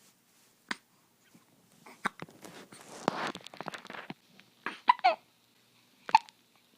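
A baby hiccuping: short, sharp hiccups spaced a second or two apart, with a cluster of three in quick succession near the middle and softer breathy baby sounds in between.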